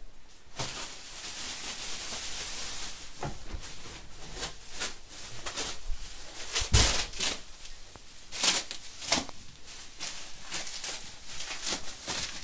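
Plastic packaging rustling and crinkling as it is handled, with scattered light knocks and rubbing from the camera being moved about; a sharper crackle stands out about seven seconds in.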